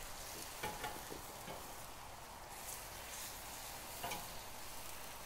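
Faint sizzle of tomato-and-wine braising liquid boiling in a cast iron wok as seared lamb shanks are set into it with tongs. A few soft knocks come through, the clearest about a second in and again about four seconds in.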